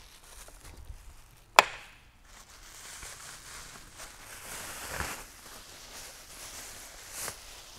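A single sharp click about a second and a half in, then clear plastic packaging rustling and crinkling as it is pulled off a drone arm.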